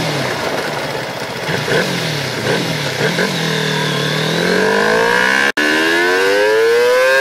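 Kawasaki Ninja 250's parallel-twin engine, heard from on the bike over wind noise. Its pitch falls as the bike slows, it revs briefly a few times, then it rises steadily as the bike accelerates. The sound drops out for an instant about five and a half seconds in.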